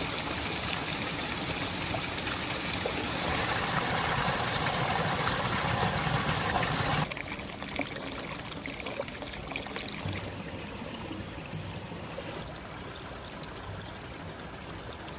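Spring water flowing and pouring, a steady rushing noise. It is louder for about the first seven seconds, then drops suddenly to a quieter flow.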